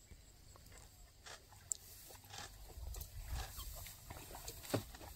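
Faint scattered rustling and crunching, with a low rumble that swells about three seconds in.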